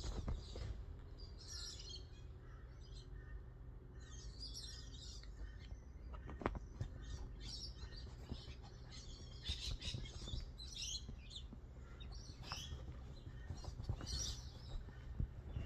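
Faint chirping of small birds, in short scattered calls, with a soft knock about six and a half seconds in.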